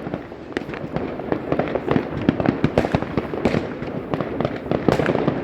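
Fireworks and firecrackers going off in a dense, unbroken run of bangs and crackles, several a second.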